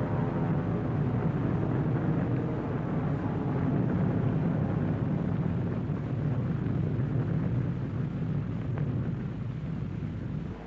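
Steady low rumble of an aircraft engine in flight, fading slightly near the end.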